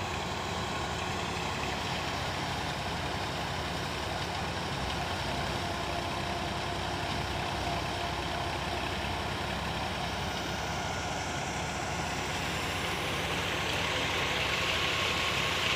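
Massey Ferguson 240 tractor's three-cylinder diesel running steadily under load, driving a PTO thresher that whirs as sesame stalks are fed through it. A hissing rush grows louder near the end.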